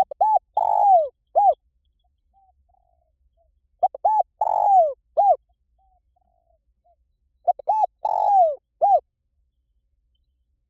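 Spotted dove cooing: three identical phrases about four seconds apart, each a couple of short coos, a long falling coo and a last short coo. Fainter, softer coos sound in the gaps between phrases.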